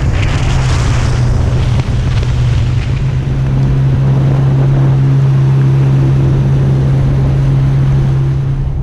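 Motorboat engine running steadily at speed as a steady low hum, with water rushing past and wind on the microphone.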